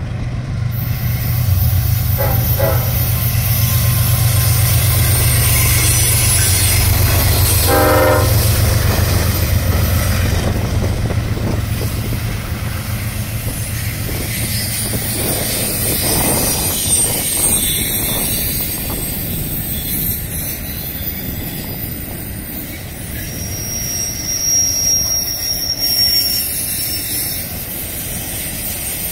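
Diesel locomotives of an intermodal freight train pass close by with a heavy low rumble, and two short horn sounds come about 2 and 8 seconds in. After the locomotives go by, the container flatcars roll past with wheel clatter and a brief high wheel squeal near the end.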